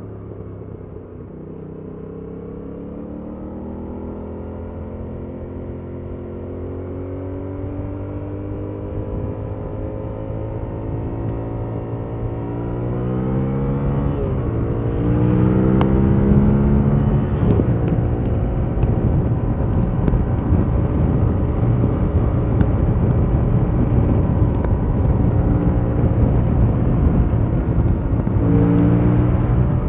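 Yamaha MT-07's 689 cc parallel-twin engine running through its stock exhaust while riding. It is steady at first, then rises in pitch and gets louder between about 12 and 15 seconds in as it accelerates, and then holds a steady higher note with more wind rush.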